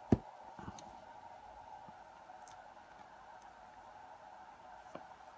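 One sharp knock about a tenth of a second in, then a few faint light clicks, as the small pin springs are dumped out of the lock housing onto the work surface. A faint steady hum runs underneath.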